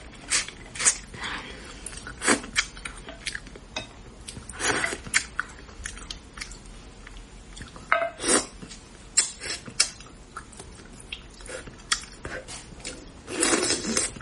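A person eating braised fish close to the microphone: chewing, lip smacks and sucking, made of many short wet clicks with a few louder bursts about five and eight seconds in.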